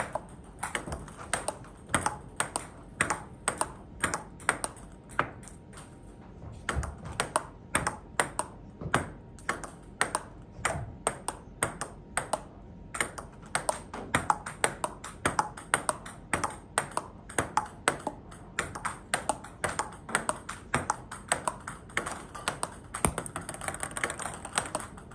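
Table tennis ball clicking off the paddles and bouncing on the table in a continuous backhand rally, about three sharp knocks a second, with a brief pause about halfway through.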